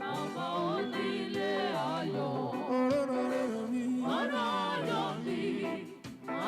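Several voices singing a Yoruba worship song together in harmony, the held notes wavering with vibrato, with a brief break in the singing near the end.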